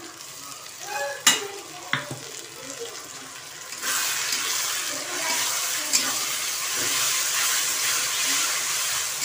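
Ginger-garlic paste being stirred into frying onions in a hot metal kadai: two sharp clicks of the spatula on the pan early on, then from about four seconds in a loud, steady sizzle as the paste hits the oil.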